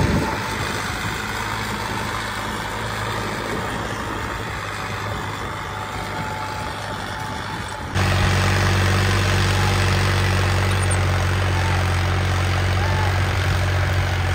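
John Deere tractor's diesel engine running steadily. About eight seconds in, the sound changes suddenly to a louder, steadier low engine drone.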